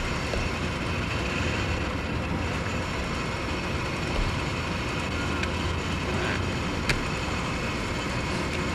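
Steady hum of heavy road traffic with trucks and cars, with a single sharp click about seven seconds in.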